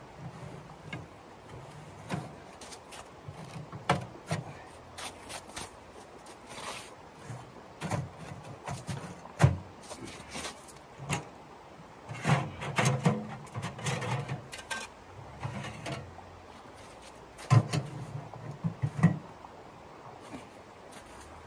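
Sheet-metal camp wood stove being set up by hand: irregular metal clanks, rattles and scrapes as it is tipped, its parts pulled out and its chimney pipe fitted, busiest about halfway through and again near the end.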